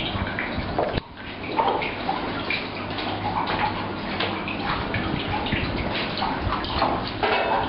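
Water running and splashing, with scattered small knocks; the sound drops out sharply for a moment about a second in.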